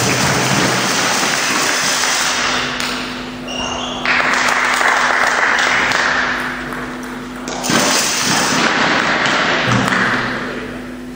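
Table tennis ball ticking on bats and table, with stretches of spectator applause echoing in a large sports hall.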